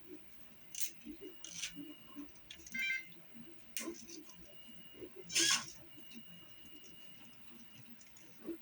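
Nylon zip ties being handled and threaded through a small robot: scratchy rustles and scrapes, with a quick ratcheting zip of a cable tie being pulled through its lock just before three seconds in and a louder scrape about five and a half seconds in.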